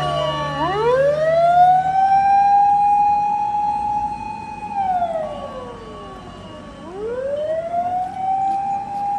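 Fire engine siren wailing in slow cycles: the pitch climbs to a held high tone, falls away about five seconds in, then climbs and holds again about seven seconds in.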